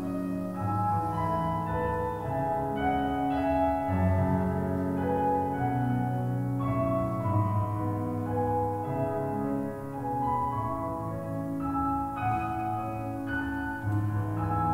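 Digital stage piano playing a slow passage of sustained chords under a melody, each note ringing on in the church's long reverberation.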